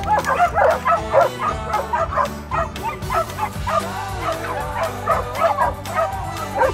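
A pack of excited dogs barking, yipping and whining all at once, many short overlapping calls with no break.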